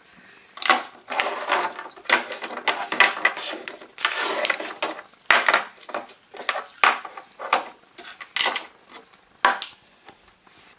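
Plastic jet torch lighters being handled and set down on a wooden table: a run of irregular clicks, knocks and clatter, with a few longer rustling stretches in the first half.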